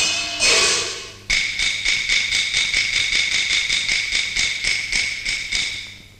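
Opera accompaniment: a melodic phrase with sliding pitch ends about a second in. Then a single high-pitched percussion instrument beats an even rhythm of about four strokes a second, stopping just before the end.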